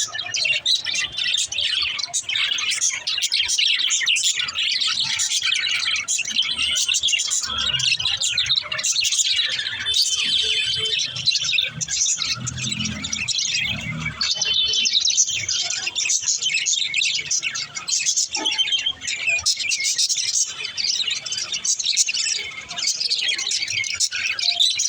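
Budgerigars chirping and warbling without a break, a dense stream of high, quick chirps.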